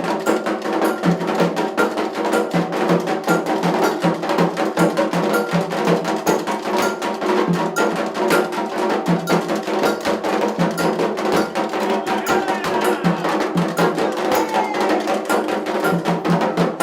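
Percussion music: a fast, dense pattern of drum strikes with sharp wood-block-like clicks, over a steady held tone.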